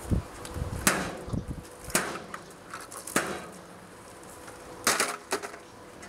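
A Panasonic NN-S688WA microwave oven being broken apart and handled: its detached door and metal-and-plastic casing knock and clatter about six times, with dull thuds in the first second or so.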